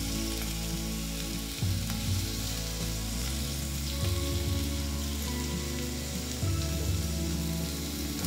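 Bite-size chicken pieces and leek sizzling in hot oil in a pot while being stir-fried with wooden chopsticks; a steady sizzle.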